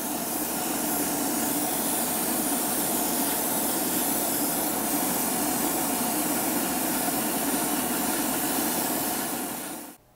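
Gravity-feed airbrush spraying paint onto a plastic model car body: a steady hiss of compressed air with a low hum beneath, cutting off abruptly near the end.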